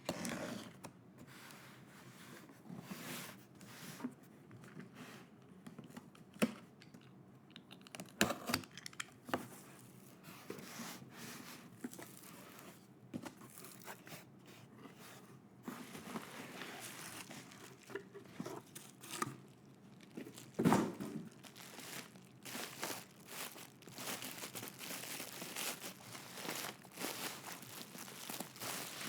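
Packaging being opened by hand: plastic and paper tearing and crinkling in irregular bursts, with one louder bump about two-thirds of the way through.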